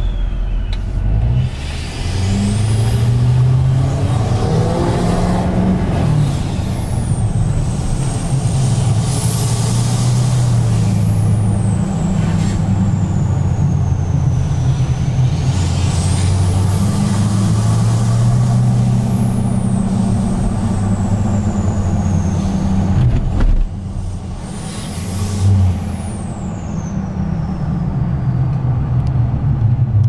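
6.6 L L5P Duramax V8 turbo-diesel with a 5-inch straight-pipe exhaust, pulling under acceleration. A high turbo whistle rises and falls about four times as the turbo spools up and lets off, over the deep, steady diesel exhaust note.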